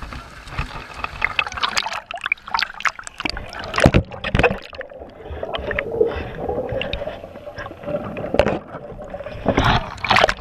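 Pool water splashing and sloshing around a swimmer and a swamped cardboard boat, with sharp splashes in the first few seconds and again near the end. In the middle the sound turns muffled and gurgling as the camera goes under the water.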